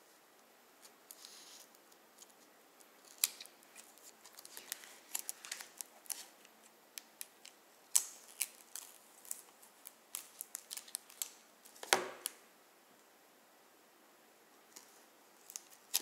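Small pocket-multitool scissors snipping through clear plastic shrink-wrap on a box: a quick run of sharp snips and crackles of the film, thickest in the middle and loudest around eight and twelve seconds in, with a few more snips near the end.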